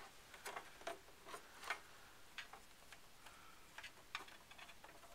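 Faint, irregular small clicks and taps as the Power Mac G5's front plastic cover is handled and its bottom tabs are lined up in the case.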